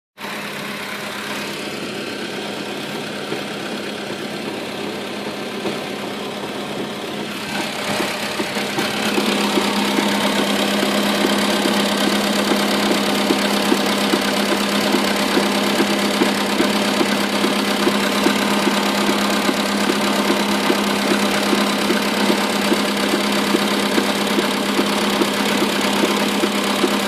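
Skoda Rapid 1.6 with its engine running and a fast, repeated knocking that the owner puts down to a worn steering rack; the sound grows louder about eight seconds in.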